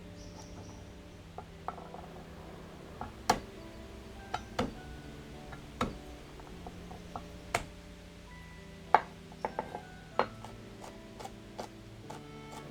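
Soft background music with scattered sharp clinks and knocks of kitchen utensils and dishes being handled, the loudest about three seconds and nine seconds in.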